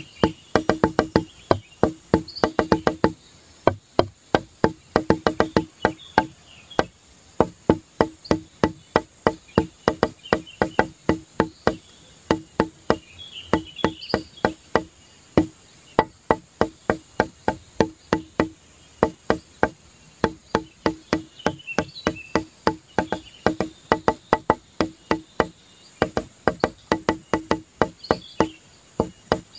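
Rapid runs of sharp, pitched wooden-sounding knocks, several a second with short gaps between runs, like a woodblock percussion pattern.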